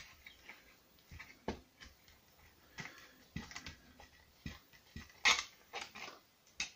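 Irregular light clicks and knocks of 3D-printed plastic pistol parts as the slide is worked back off the frame, the loudest click about five seconds in.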